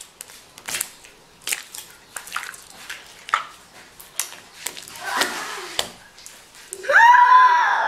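Clear slime being stretched and kneaded by hand on a table: a run of wet clicks and small pops, with a child's voice in a drawn-out exclamation near the end.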